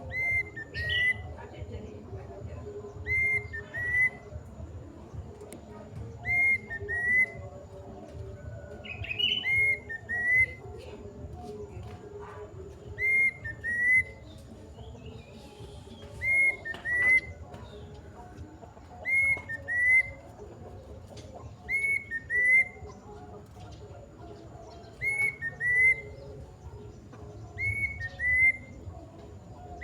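Kedasih cuckoo calling over and over: a short phrase of two or three clear whistled notes, repeated about every three seconds. Other birds chirp faintly now and then.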